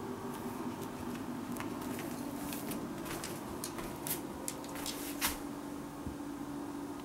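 A scatter of light clicks and taps over a steady low hum, with a few sharper clicks about four to five seconds in.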